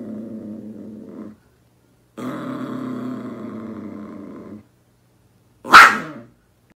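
Small dog growling while guarding its chew from a budgie, in two long growls with a silent pause between. Near the end comes one short, sharp, loud sound as the dog lunges.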